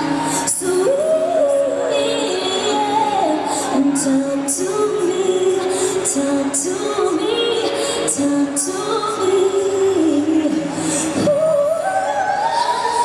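Female pop singer singing live into a microphone over a pop backing track with a steady drum beat; her melody climbs near the end.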